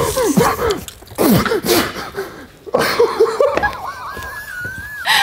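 Two people laughing and shrieking with gasps and breathy bursts, then a long high-pitched squeal that rises and holds over the last second or so.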